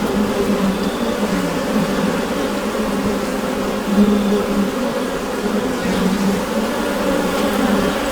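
Honeybee colony humming inside the hive: a dense, steady drone of many wingbeats that swells and eases slightly but never stops.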